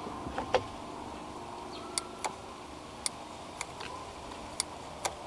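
BMW E30 throttle switch (idle/full-throttle switch) on the bottom of the throttle body clicking as the throttle is opened and let off by hand, with the engine off. There are about eight short, sharp clicks at irregular intervals, roughly one every half second to second.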